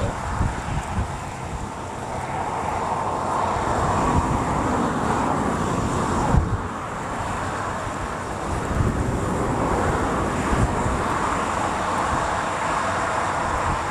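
Wind buffeting the microphone in gusts, over a steady outdoor rushing noise that swells and eases a couple of times.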